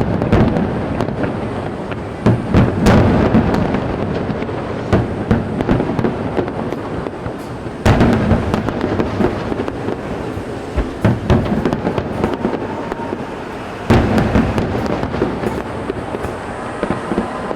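Aerial fireworks shells bursting in a large display: sudden loud booms, the biggest about 2, 8 and 14 seconds in, with continuous crackling and rumbling between them.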